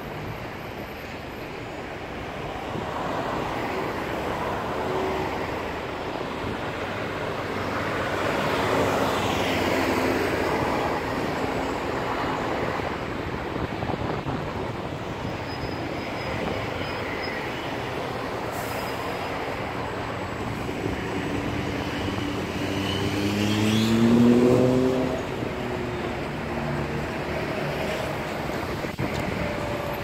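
City street traffic: vehicles passing, with a broad swell of passing noise about ten seconds in and an engine accelerating with a rising pitch, the loudest moment, about twenty-four seconds in.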